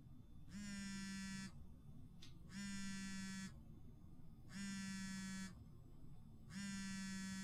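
A mobile phone vibrating with an incoming call: four one-second buzzes, evenly spaced about two seconds apart.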